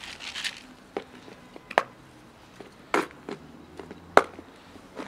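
Several sharp clacks and knocks of plastic food tubs on concrete as cat food is set down, the loudest about four seconds in, after a brief noisy rush at the start.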